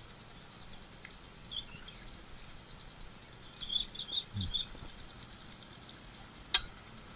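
Faint, short bird chirps in little clusters, a soft low thud about four seconds in, and a single sharp click about six and a half seconds in, the loudest sound.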